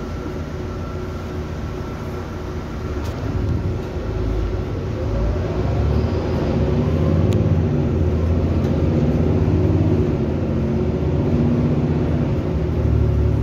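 Inside a city bus under way: steady engine and road rumble. It grows louder about four seconds in, with a rising whine as the bus picks up speed.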